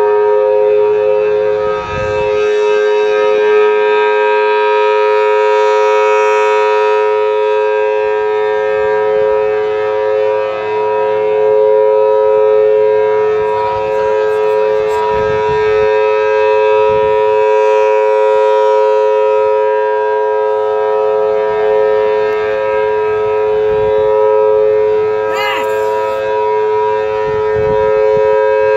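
Federal Signal Thunderbolt 1000T outdoor warning siren sounding a loud, steady two-tone alert: two close pitches held level throughout after a slight rise at the start.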